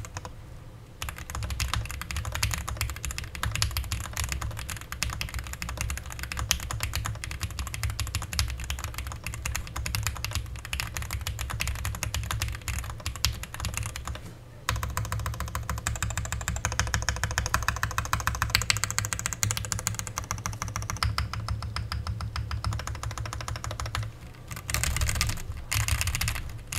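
Typing on a mechanical keyboard with stock Gateron Milky Yellow Pro linear switches, an FR4 plate and ABS keycaps in an aluminum case, with no PE foam: a fast, continuous run of key clacks, pausing briefly about halfway through.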